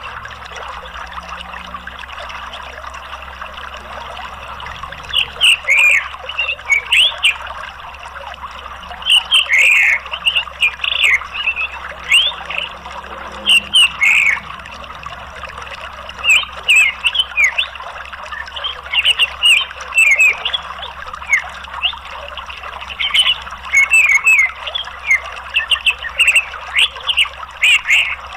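Orange-headed thrush singing in bursts of quick, sharply sliding notes every second or two, over a steady rush of flowing water.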